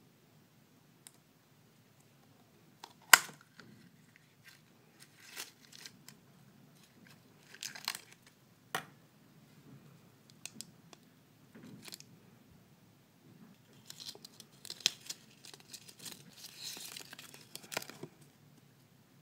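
A plastic gashapon capsule pulled apart with a loud sharp click about three seconds in, followed by scattered small clicks and handling. Later a clear plastic wrapper crinkles and tears as it is opened.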